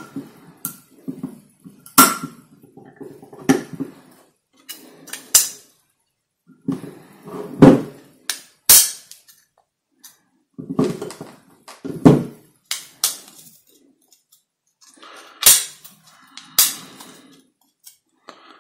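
Hard plastic Rubik's Clock parts being handled and set down on a plastic board: irregular sharp clicks and short clatters with quiet pauses between them.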